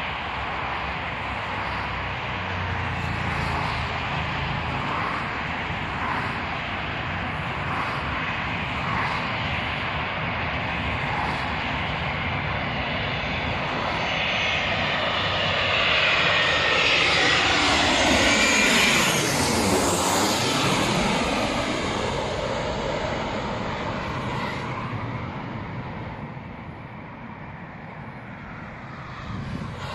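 Boeing 737-500 jet airliner on short final passing low overhead. Its CFM56 turbofans' rumble and high fan whine swell to a peak about two-thirds of the way through, sweep down in pitch as it passes, then fade away.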